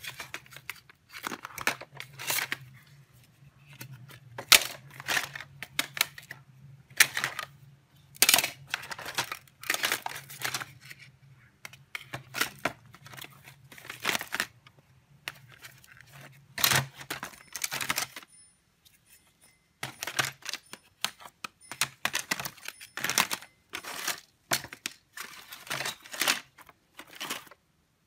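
Hands working on an old smartphone: irregular clicks, taps and crinkling of small hard parts and packaging being handled. Under them runs a steady low hum that stops about two-thirds of the way through.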